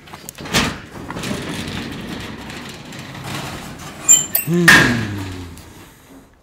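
A corrugated-steel up-and-over garage door being unlocked and swung open. There is a bang about half a second in, then a steady metallic rumble as the panel rides up, and loud clanks a little past four seconds in as it reaches the open position.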